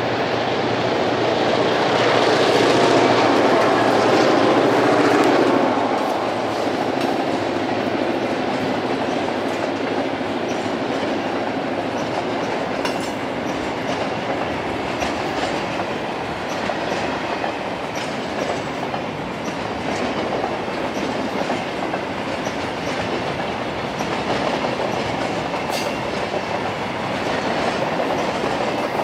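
Three Victorian Railways diesel locomotives (X, S and B class) passing close, loudest in the first six seconds or so. After that a line of loaded container wagons rolls by with a steady clickety-clack of wheels on the rails.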